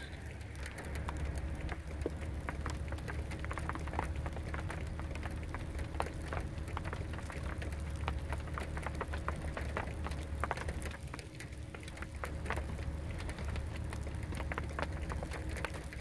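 Raindrops striking a car's body and open window as a rain shower begins, many irregular ticks, over a low steady rumble.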